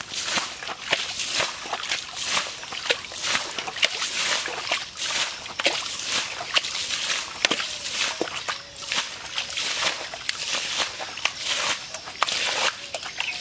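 Muddy water being bailed out of a shallow pit by hand: repeated sloshing scoops and splashes as water and mud are flung out and splatter onto the ground.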